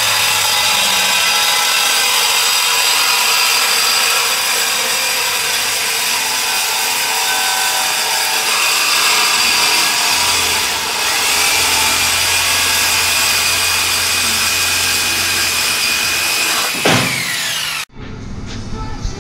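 Reciprocating saw cutting through the car's exhaust pipe to remove the mid muffler: a loud, steady buzz of the blade on metal. Near the end it winds down and then stops abruptly.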